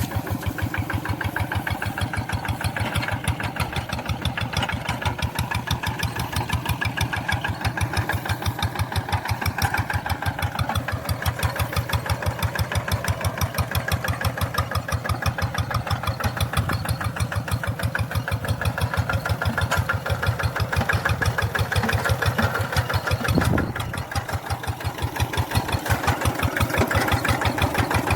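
Tractor engine running steadily with an even, rapid chugging beat; the beat falters briefly about 23 seconds in, then picks up again.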